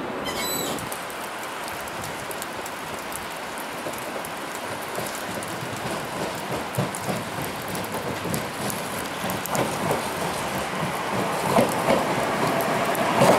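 Steady hiss of rain, with an Alstom Citadis Dualis tram-train approaching and pulling into the platform: its running grows louder through the second half, with a few sharp wheel clicks near the end.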